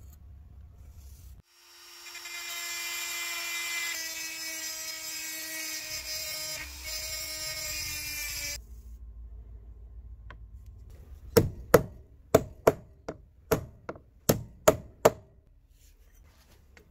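A small electric drill runs steadily for about seven seconds, drilling out a rivet in the rusty iron frame of an antique tobacco cutter. Then about ten sharp hammer blows on a pin punch drive the rivet out.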